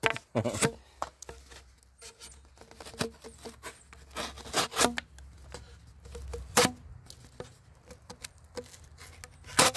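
Ozark Trail folding knife's D2 blade cutting through a thick cardboard tube: scattered crunching and scraping, with sharp cracks about half a second in, around four and a half seconds, near six and a half seconds and near the end.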